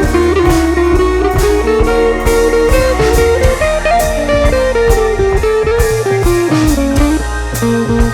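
Blues-style instrumental music: an electric guitar playing a melodic lead line over a drum kit beat.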